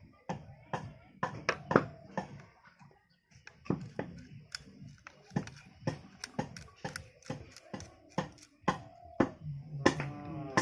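Irregular sharp taps and knocks, several a second, with a brief pitched ringing tone near the end.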